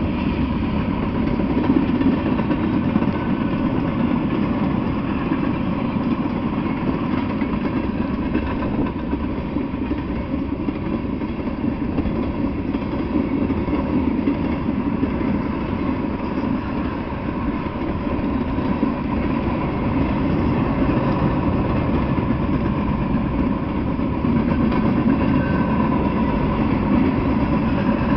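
Freight train cars rolling past steadily on the rails, a continuous noise of wheels and cars with a faint steady tone running through it.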